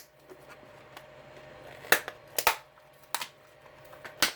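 Hard plastic retail packaging being forced open by hand, with about four sharp cracks and crinkles spaced out over a few seconds.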